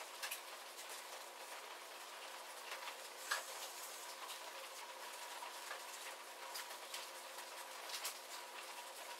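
Light rain shower: a faint, steady hiss of rain with scattered drops tapping close by, the sharpest one about a third of the way in.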